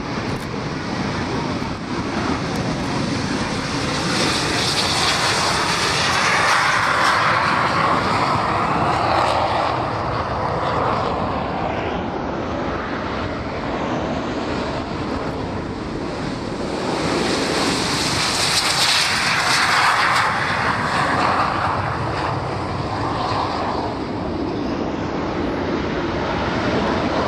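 BAE Hawk T1 jets taking off, their turbofan engines at full power. The roar swells loud twice, first from about four to eleven seconds in and again from about seventeen to twenty-two seconds in, as the jets roll and climb past.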